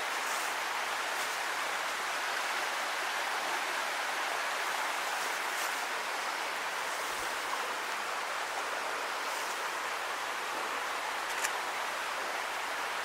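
Steady rushing water, an even hiss, with a few faint ticks like drips near the end.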